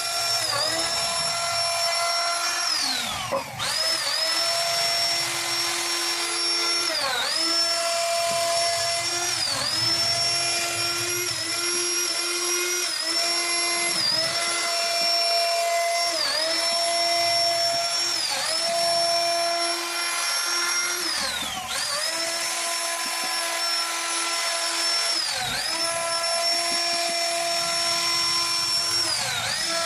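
CNC router spindle whining steadily while cutting wood, its pitch dipping briefly every two to three seconds, with a few deeper drops.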